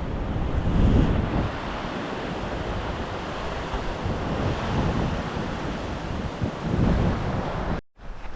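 Ocean surf washing on the shore, with wind buffeting the microphone in low gusts about a second in and near the end; it cuts off suddenly just before the end.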